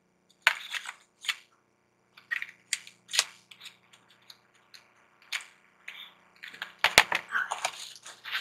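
Makeup products and packaging handled by hand: scattered light clicks, taps and rustling, with one sharp click about seven seconds in.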